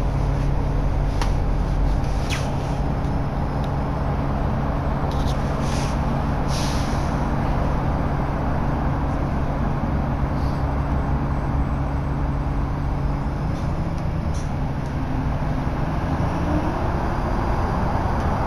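Interior of a Nova LFS Artic articulated bus under way: the engine runs with a steady low drone, and a few short rattles and hisses sound in the first several seconds.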